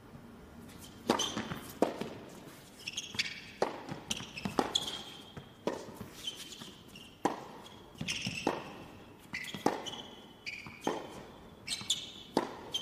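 Tennis rally on an indoor hard court: sharp pops of the ball off racket strings and its bounces, several each second, starting about a second in after the serve toss, with short high squeaks of players' shoes on the court between shots.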